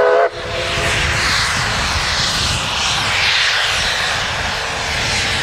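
The last moment of a multi-note steam locomotive whistle blast from narrow-gauge steam locomotive 488, cutting off just after the start and dying away over about a second. After it comes a steady rushing roar of the engine's steam and exhaust, with a gusty low rumble underneath.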